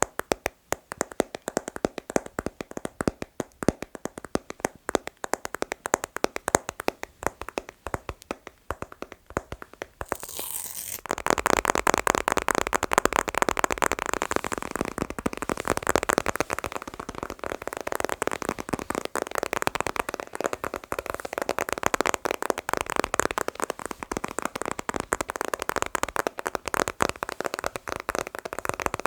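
Rapid ASMR finger tapping on objects, a quick run of light clicks. About ten seconds in there is a brief hiss, then the tapping becomes denser and louder.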